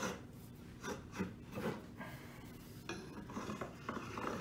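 A marking tool scraped along the face of a wooden board in a series of short strokes, scoring layout lines for a mortise.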